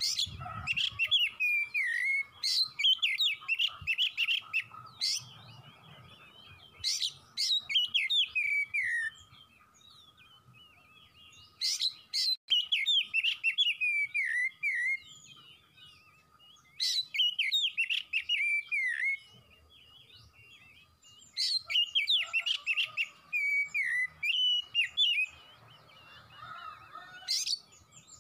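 Oriental magpie-robin singing in bursts of rapid warbling: quick whistled phrases mixed with sharp, harsh notes, about five song bouts separated by short pauses.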